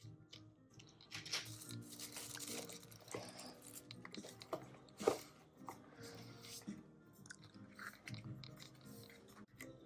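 Packaging being handled during a keyboard unboxing: crinkling and rustling, with scattered clicks and taps and one sharper click about five seconds in. Soft background music underneath.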